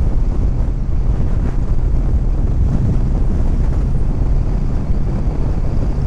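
Wind buffeting the microphone of a 2014 Honda Valkyrie motorcycle at highway speed: a loud, steady low rumble, with the bike's running engine and road noise beneath it.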